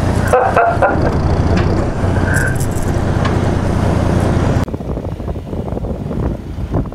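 Fishing boat's engine running steadily under wind and water noise; about two-thirds of the way through it cuts abruptly to a quieter hiss of wind and sea.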